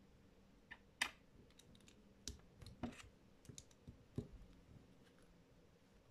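Lego plastic bricks being handled and pressed together: scattered faint clicks and taps, the sharpest about a second in.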